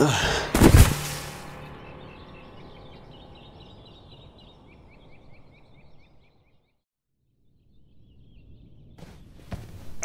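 One loud, sudden impact hit that rings out and fades away over several seconds, with faint quick bird chirps in the fading tail. It is followed by a short stretch of near silence, and faint sound comes back near the end.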